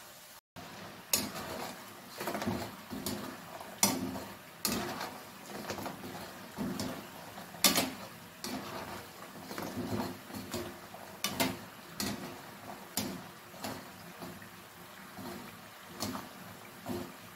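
Rice-flour balls deep-frying in hot oil in a non-stick kadai, the oil bubbling, while a wire frying skimmer stirs them. The skimmer knocks and scrapes against the pan about once a second.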